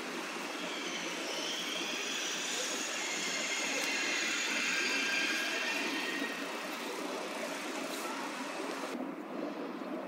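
Railway station ambience: a train squealing in several high metallic tones from about a second in until around seven seconds, over a steady rumble of rolling stock.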